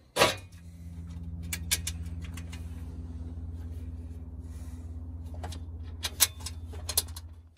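Light clicks and clanks of a bare aluminum center console panel and its hardware being handled by gloved hands, over a steady low machine hum. A sharp knock right at the start is the loudest sound, with a few more clatters a second or two in and again near the end.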